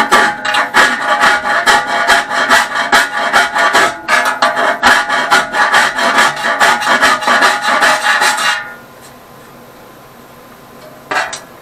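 Hand file rasping back and forth along a cut edge of a lawn tractor's dash panel, several quick strokes a second for about eight seconds, then stopping. A single short click near the end.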